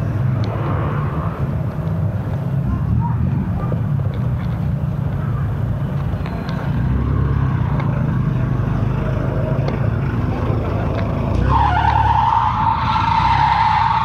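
Road traffic with a steady low rumble of vehicles. About eleven and a half seconds in, a high squeal comes in and holds for about three seconds.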